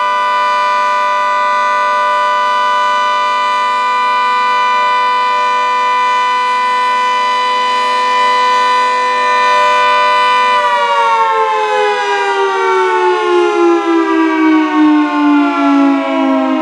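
Federal Signal 2T22 dual-tone outdoor warning siren holding a steady two-tone chord at full speed, then, about ten seconds in, winding down: the chord falls steadily in pitch and wavers in loudness as the rotors slow. This marks the end of a 3-minute steady alert.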